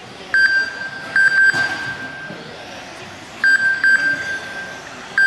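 High electronic beeps from the race's lap-timing system, sounding as cars cross the timing line: a single beep, then a quick run of three whose last note rings on in the hall, the whole pattern coming twice. A faint steady background lies underneath.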